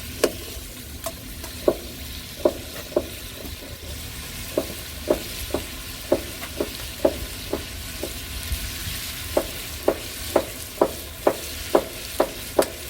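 Pork and green onions sizzling in hot fat in a pan, with a utensil knocking against the pan again and again as it is stirred, up to about twice a second.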